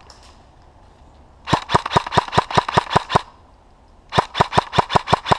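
Airsoft gun firing two strings of rapid shots, about six a second, the first lasting nearly two seconds and the second starting about a second later.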